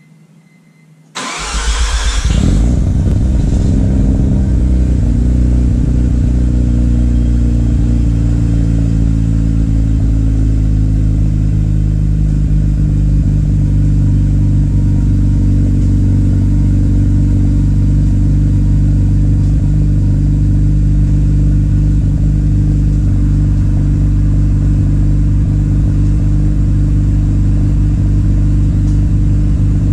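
A 1994 Mazda RX-7's twin-rotor 13B-REW rotary engine cold-starting: it fires suddenly about a second in, then settles into a steady idle heard at the exhaust.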